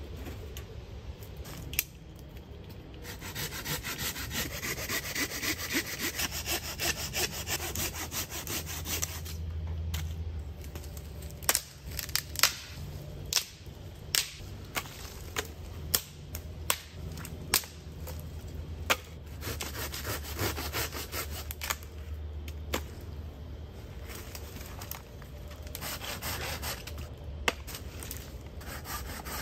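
Hand saw cutting through a dead branch in runs of quick back-and-forth rasping strokes. A string of sharp cracks comes about halfway through.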